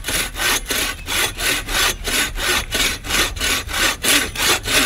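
Hand bow saw cutting through a fallen log in fast, even push-and-pull strokes, about four a second.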